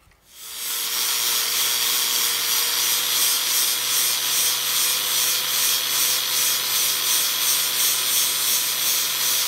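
Angle grinder with an 80-grit flap disc starting up about half a second in, then sanding a MIG plug weld flush on steel sheet metal: a steady motor whine under a scraping grind. This is the finishing pass, after the weld has been rough-ground with a coarser disc.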